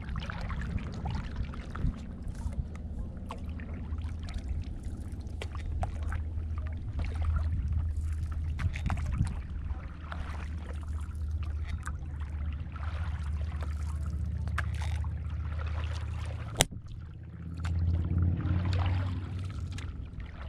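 Paddle strokes on calm lake water as a paddle board glides along: water trickles and drips off the paddle blade over a low, steady rumble. There is one sharp knock about three-quarters of the way through, and a louder low swell shortly after it.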